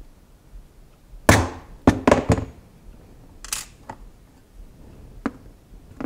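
Several sharp metallic clicks and knocks as a steel transfer punch and small cast metal engine parts are handled and set down on a wooden workbench: one solid knock with a short ring, a quick run of three clicks, a brighter rattling clink, then a couple of lighter ticks.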